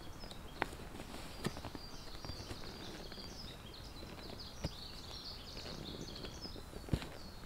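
Small forest birds chirping continually, high-pitched, with a few scattered footsteps on the trail.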